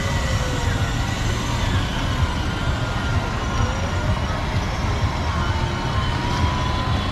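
Steady din of a busy outdoor ride-on toy car arena: a loud, even low rumble with faint electronic tones gliding slowly up and down above it, the kind that children's electric ride-on cars play.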